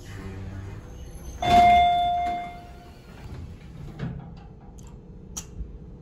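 Elevator chime dinging once, about a second and a half in: a single clear ringing tone that fades out over about a second. A couple of small clicks follow near the end.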